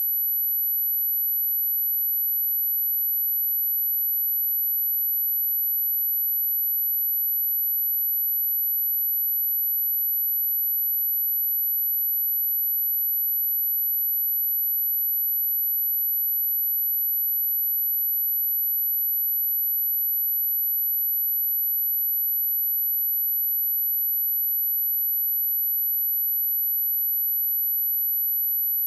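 Continuous high-pitched sine-wave test tone at 11874 Hz, one pure steady pitch at constant level, used to test speakers and to shake water and dust out of a speaker.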